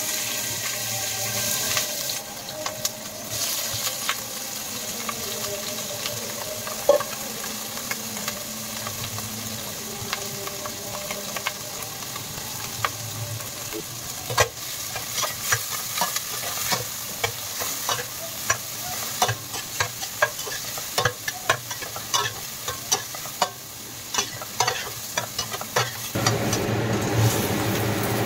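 Shrimp frying in hot oil in a stainless steel pot, a steady sizzle, with sliced onion and garlic frying in with them later on. They are stirred with a utensil that clicks and scrapes against the metal pot, the knocks coming thick and irregular from about halfway on. Near the end the sound turns louder and fuller.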